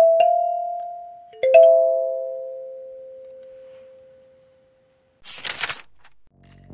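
Bell-like chime notes of a channel logo jingle, ending on one struck chord that rings out and slowly fades over about three seconds. About five seconds in comes a short hissing swish, and new synth music starts near the end.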